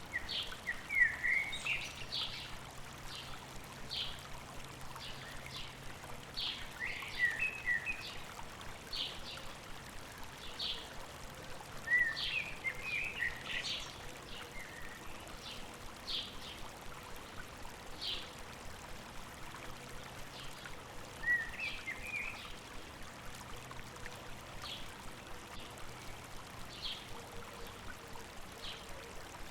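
Stream water running steadily, with birds calling over it: a short high chip repeated about once a second, and brief twittering phrases a few times.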